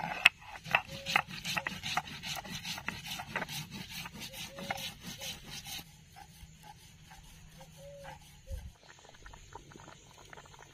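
Stone roller scraping back and forth over wet cumin seeds on a flat grinding stone (shil-nora), crushing them into a paste: dense gritty rubbing strokes for about six seconds, then fainter and sparser.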